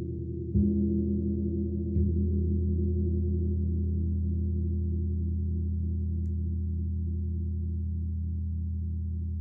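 A 28-inch Black Sun gong struck twice with a soft mallet, about half a second and two seconds in, then left to ring with a deep hum that wavers gently as it slowly fades.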